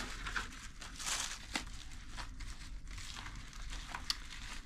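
Packaging crinkling and rustling in irregular bursts as items are handled in a subscription box, with a louder stretch about a second in.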